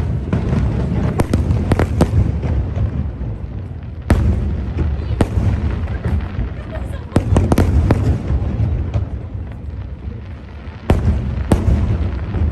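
Aerial fireworks shells bursting in sharp bangs at irregular intervals, some in quick clusters, over a steady low rumble.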